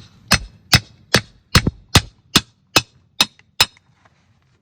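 Steel firewood-splitting wedge being struck about eleven times in a steady rhythm, about two and a half ringing metallic blows a second, driving it into a log until the log splits. The blows stop a little before the end.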